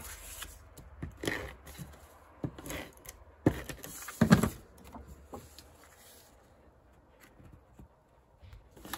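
Cardstock and a tape-runner adhesive dispenser being handled on a craft table: rustling and light clicks with a few louder knocks in the first half, then quieter rustling as the paper panel is set in place.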